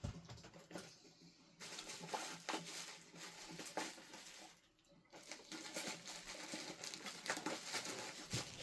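Faint scattered clicks, taps and light rustling from small models and their packaging being handled and set down on a table.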